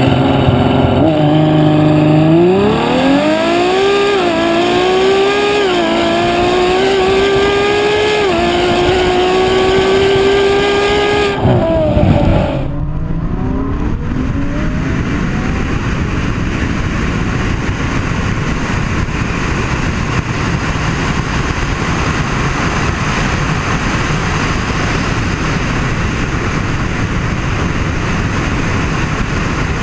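Ferrari F12 Berlinetta's V12 engine accelerating hard, its note climbing in pitch with a few brief dips, then holding high before it drops off about eleven seconds in. After a cut, a steady rushing noise with no clear engine note fills the rest.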